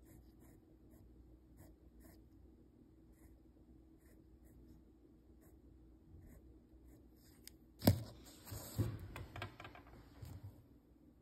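Faint pencil strokes scratching on sketchbook paper. About eight seconds in comes a sharp knock, followed by irregular bumps and rustling as the recording phone is handled and moved back from the page.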